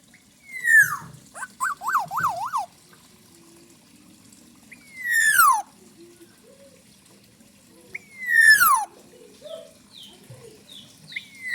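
Black-naped oriole calling: a loud call that slides down in pitch, repeated about every three seconds, four times. The first call is followed by a quick wavering phrase that swings up and down in pitch.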